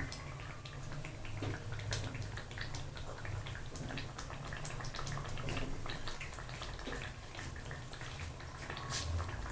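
Thick creamy curry gravy bubbling in a pot: irregular small pops and clicks over a low steady hum.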